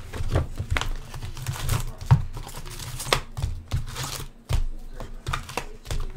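A cardboard trading-card hobby box being torn open and its foil card packs pulled out, with crinkling wrappers and irregular sharp clicks and taps as the packs knock together.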